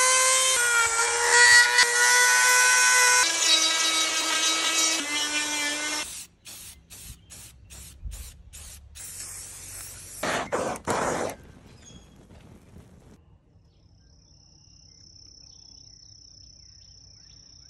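Dremel rotary tool running with a high steady whine, its pitch dropping a few times as the bit bites into the wood, for about the first six seconds. It then cuts in and out choppily. About ten seconds in come two short hisses of an aerosol spray-paint can.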